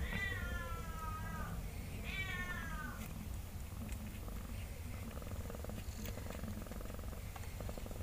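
Newborn kitten mewing twice, high-pitched calls that fall in pitch: a long one at the start and a shorter one about two seconds in, over a low, steady purring.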